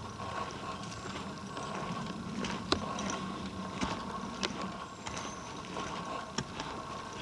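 Footsteps on rocks and forest litter: scattered sharp clicks and knocks, the loudest about three seconds in, over the steady rush of a waterfall.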